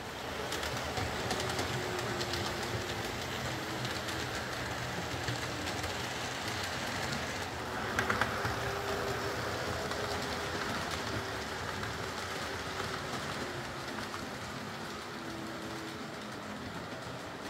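OO gauge model trains running on the layout's track: a steady electric-motor hum with wheels clicking over the rail joints. There is a brief louder rush about 8 seconds in.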